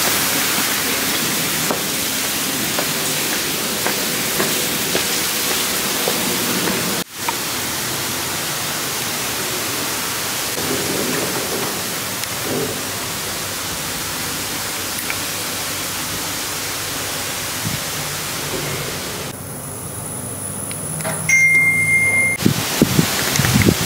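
Steady rushing noise with a brief break about seven seconds in. Near the end comes a short, high electronic beep.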